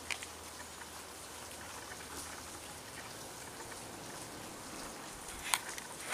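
Faint, steady outdoor hiss with a few light scattered ticks, and one sharper click about five and a half seconds in.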